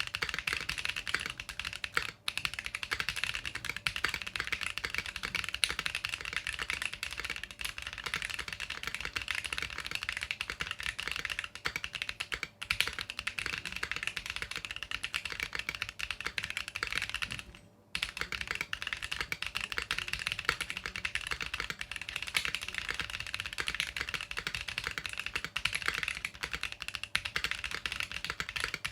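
Fast, continuous typing on a Keychron Q1 aluminium mechanical keyboard with stock Gazzew Boba U4T tactile switches and GMK Blue Samurai keycaps: dense keystroke clacks. There are short pauses about two seconds in and about twelve seconds in, and a slightly longer one about eighteen seconds in.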